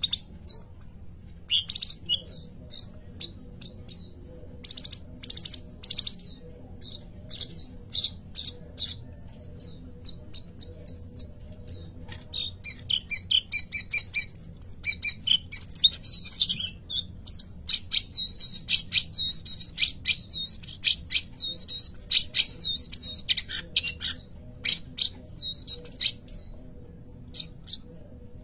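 A songbird singing in runs of short, repeated chirps. From about twelve seconds in it becomes a busier, more varied song of quick chirps and trills, over a faint steady low hum.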